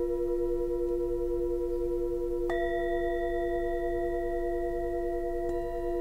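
Small singing bowls from a set of three (10, 12 and 14 cm) struck with a mallet. The bowls keep up several long, steady, overlapping ringing tones. Two strikes about three seconds apart each add fresh, brighter ringing on top.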